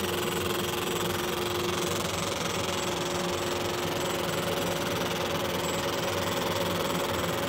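60-watt MOPA fiber laser engraving stainless steel: a steady mechanical hum with a couple of steady droning tones, which shift slightly about two seconds in.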